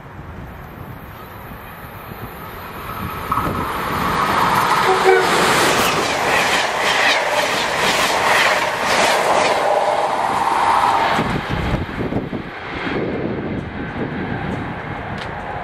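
Amtrak passenger train of stainless-steel Amfleet coaches passing through at speed. The rush of wheels and air builds over a few seconds, rapid clicking of wheels over rail joints comes at its loudest, and it falls away near the end.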